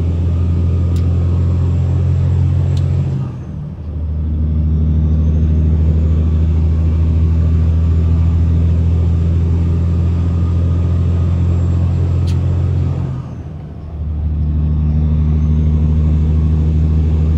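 Semi-truck diesel engine droning under load, heard inside the cab. Twice, about three and a half and fourteen seconds in, the drone briefly drops away and then picks up again, as power is cut for an upshift.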